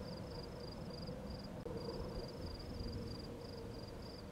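Crickets chirping in a steady rhythm, several chirps a second, over a low rumbling background noise, with a brief dropout about one and a half seconds in.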